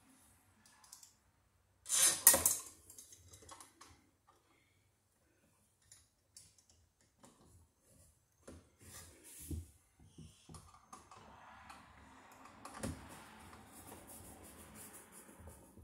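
Hand screwdriver driving screws to fasten a plastic surface-mount outlet box to wood trim. Scattered clicks and rattles of small parts being handled, with a louder clatter about two seconds in, then a steady scraping grind of a screw turning in from about ten seconds on.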